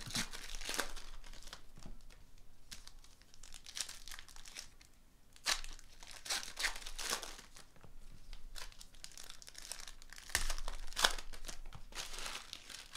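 Foil trading-card pack wrappers being torn open and crinkled by hand, in a string of short rustles.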